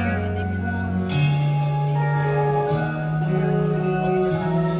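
Live rock band playing the slow opening of a song: sustained electric guitar notes over held low bass notes that step to a new pitch about every second and a half.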